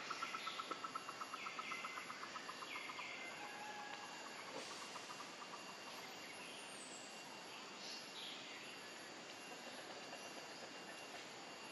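Forest ambience: a rapid pulsing trill that fades away over the first few seconds, a few short high chirps, and a steady background hiss.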